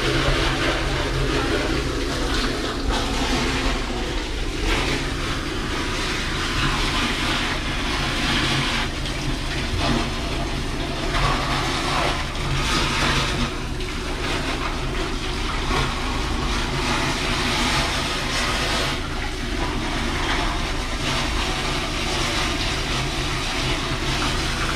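Engine of a septic vacuum truck running steadily under a rush of water that swells and eases in waves: water is being flushed through a blocked toilet drain line to clear it.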